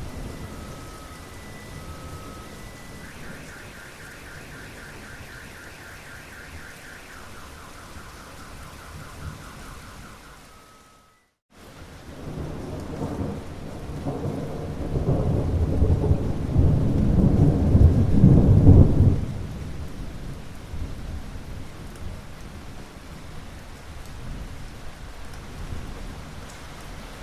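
Steady rain with a car alarm going off, cycling from alternating beeps to rapid pulsing tones. After a brief cut to silence at about eleven seconds, a long rumble of thunder swells, peaks about seven seconds later and dies back to the rain.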